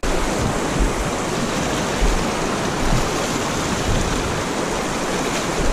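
Shallow river riffle: water rushing and splashing over rocks and grass clumps close to the microphone, a steady, even rush.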